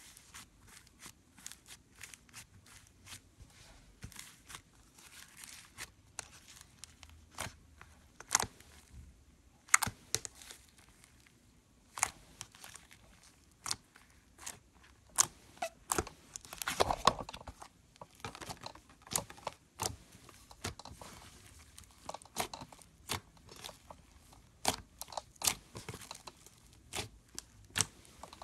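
Foam slime (floam) being squeezed and poked by hand, giving irregular crunchy crackles and pops, with a denser stretch of crackling a little past halfway.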